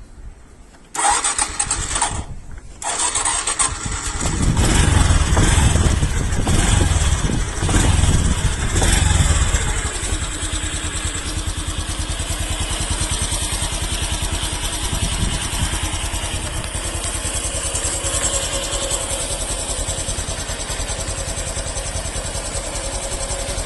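Honda Super Cub C110's small single-cylinder four-stroke engine being started about a second in, revved a few times, then settling into a steady idle. It runs without abnormal noise, its camshaft replaced and tappet clearance adjusted.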